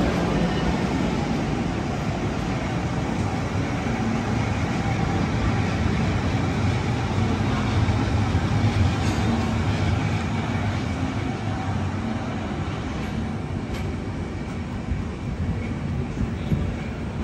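Train running past, a steady low rumble that is loudest about halfway through and then slowly fades.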